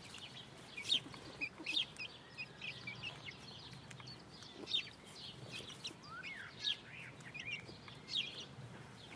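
Five-week-old bantam Wyandotte chicks peeping: short high chirps come every fraction of a second, with a few louder ones.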